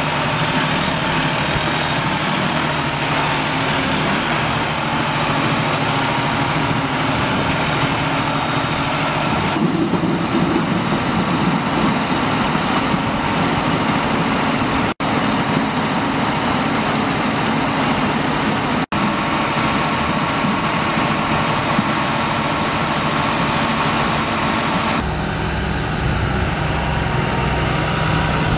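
Large farm tractors' diesel engines running steadily, heard across several clips cut together, so the engine note changes abruptly at each cut.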